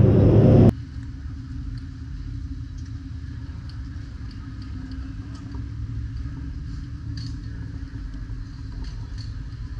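A loud engine cuts off abruptly less than a second in. What follows is a steady, low engine rumble with an even hum and faint ticks above it.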